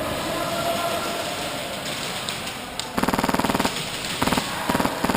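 Airsoft gun firing on full auto: one longer burst about three seconds in, then two or three short bursts near the end, each a rapid, even rattle of shots.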